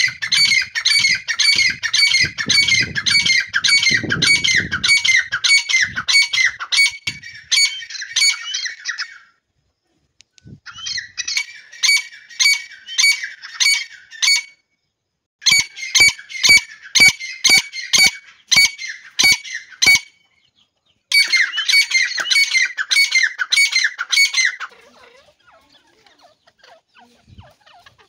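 Grey francolin (teetar) calling: fast, loud, shrill repeated notes in four bouts with short pauses between them, dying away about three-quarters of the way through.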